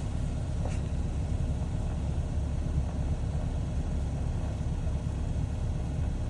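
Ravon R3 heater blower motor running on its lowest speed: a steady rush of air over a low rumble, with no clear whistle. Its two small bearings have just been cleaned and greased to cure a whistle.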